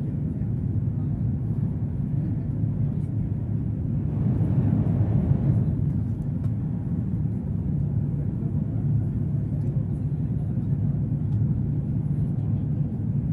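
Cabin noise inside the Jakarta–Bandung high-speed train running at speed: a steady low rumble, swelling briefly louder about four seconds in.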